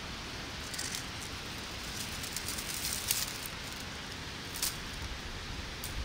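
Wind rumbling on the microphone, with dry plant stalks and dead leaves rustling and giving a few short crackles.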